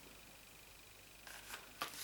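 Near silence, then faint rustling and a light tap in the second half as a paper calendar is handled.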